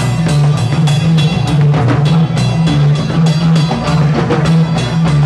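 Loud live band playing: a drum kit keeps a fast, steady beat under a keyboard and a strong, heavy bass line.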